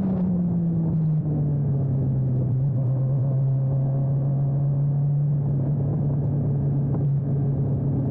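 Radical race car's engine easing down in pitch during the first second, then running at a steady, low engine speed, over a steady rumble of wind and road noise.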